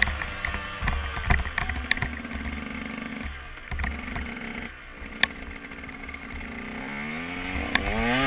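KTM 125 EXC two-stroke enduro engine at low, steady revs while the bike rides over rough ground, with scattered knocks and clicks. Near the end the pitch climbs and it grows louder as the throttle opens.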